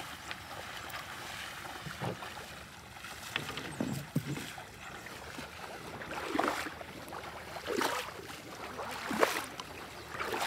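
Splashing of a person wading through shallow lake water, with separate splashes about every second and a half in the second half.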